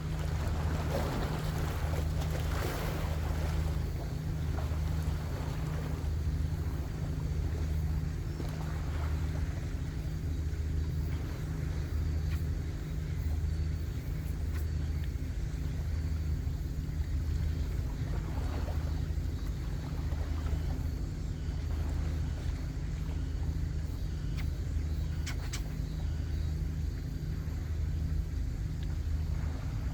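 Boat engine running steadily with a low throb that swells about once a second, under light wind and water noise.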